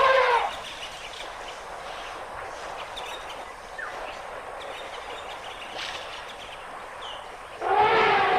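Asian elephants trumpeting: a loud brassy call right at the start and a longer one, about two and a half seconds, near the end, with steady outdoor noise and a few faint bird chirps between.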